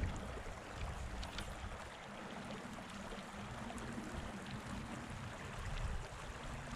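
Small, shallow mountain meadow stream trickling over stones: a steady, even water sound with a low rumble underneath.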